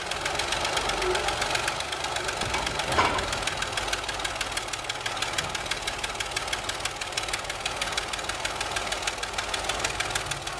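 Crawler bulldozer's diesel engine running hard under heavy load, a rapid, even clatter of exhaust pulses. A brief louder sound comes about three seconds in.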